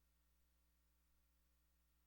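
Near silence: faint steady electrical hum.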